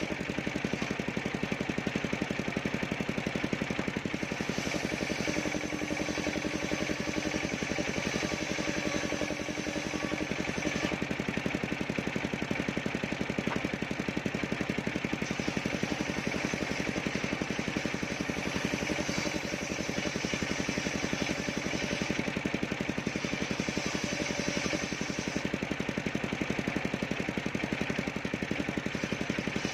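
Engine of a portable circular sawmill running steadily, with its fast even firing beat and the spinning saw blade's tone.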